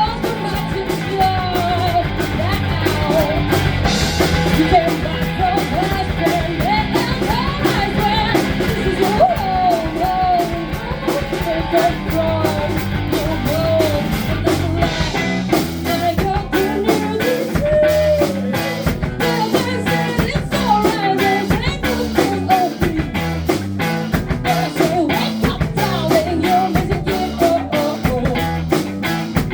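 Live rock band playing a song with a lead vocal over electric guitar, bass and drums. The drums get busier and sharper about halfway through.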